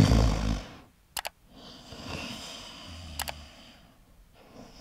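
Two sharp double mouse-click sound effects, about two seconds apart, over quiet room tone; a low rumble dies away in the first second.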